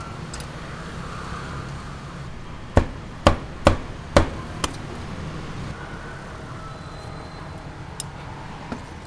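Cleaver chopping a sausage into pieces on a thick wooden chopping block: four sharp chops about half a second apart, then a lighter one, and two faint taps near the end, over steady background noise.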